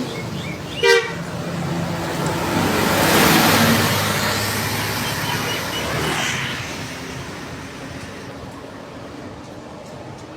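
Tourist buses passing on the road: a short, loud horn toot about a second in, then engine and tyre noise swelling to a peak around three seconds in, again near six seconds, and fading toward the end.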